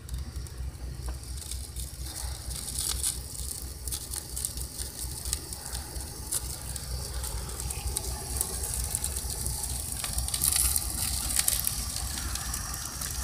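Hose-fed gas torch hissing against a stack of split firewood while the wood catches, with crackling and sharp pops throughout. A steady low rumble runs underneath, and the hiss swells about two seconds in and again near the end.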